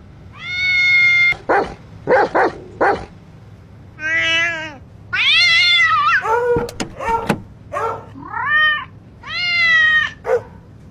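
A cat meowing repeatedly: about five long drawn-out meows, some held level and some rising and falling, with shorter calls between them.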